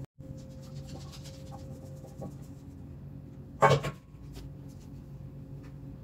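Silicone spatula scraping thick batter from a stainless steel bowl and spreading it in a paper-lined aluminium baking pan, with soft rubbing and scraping. About three and a half seconds in, one loud clank with a short metallic ring as the steel bowl is set down in the sink. A steady low hum runs underneath.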